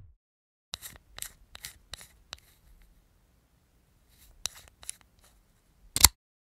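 A series of short, sharp clicks or snips with near silence between them: about five spread over the first few seconds, a few more later, and one louder click near the end.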